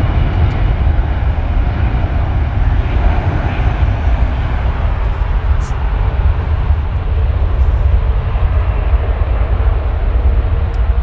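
Airbus A330neo's Rolls-Royce Trent 7000 turbofans at low taxi thrust as the airliner rolls slowly along the taxiway: a steady jet hiss over a deep, fluctuating rumble.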